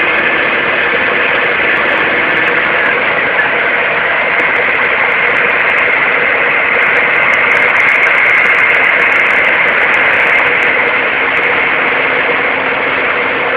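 Diesel engines of road-paving machinery running steadily at idle, a constant mechanical hum with no changes in speed.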